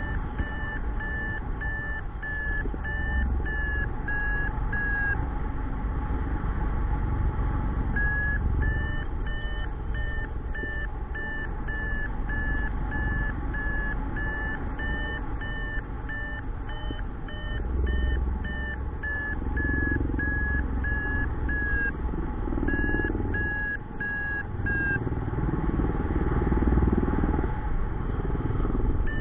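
Paragliding variometer beeping, about two short high beeps a second, the audio sign that the glider is climbing in lift, over wind rushing on the microphone. The beeps stop twice for a few seconds and cease a few seconds before the end, leaving only the wind.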